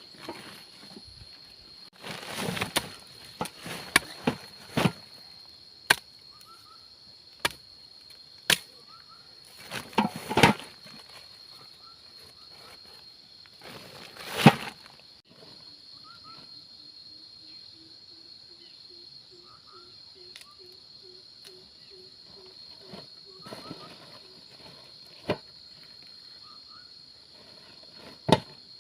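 Insects, crickets or cicadas, buzzing in one steady high note, with irregular sharp knocks and thuds over it. About halfway through, a short run of low, evenly spaced pulsing calls rises slightly in pitch, and there are a few faint chirps.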